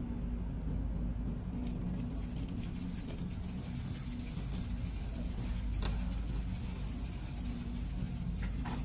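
Shopping cart rolling along a store floor, a steady low rumble from its wheels, with a few light clicks and rattles.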